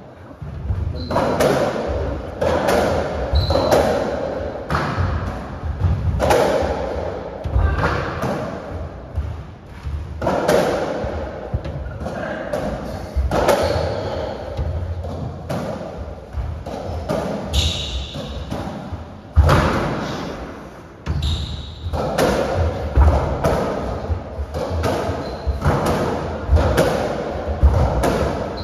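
Racketball being played on a squash court: the hollow rubber ball thudding again and again off the rackets, walls and floor, each hit echoing briefly in the court.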